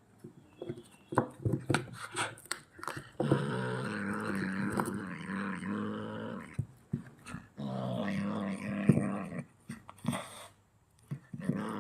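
Kitten growling: two long, low, wavering growls of a few seconds each, with another starting at the very end. Scattered sharp clicks and rustles come before the first growl.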